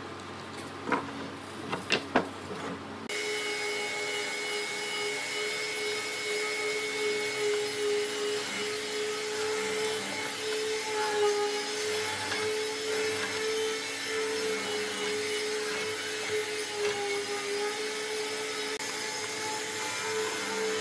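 A few sharp knocks, then from about three seconds in a benchtop hollow-chisel mortiser running steadily as its square chisel and auger bore a mortise into a wooden rail, the motor's tone dipping slightly now and then under the cut.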